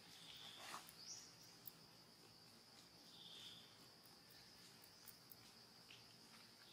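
Faint forest ambience: insects keeping up a steady high-pitched drone, with two short chirps and a few light clicks.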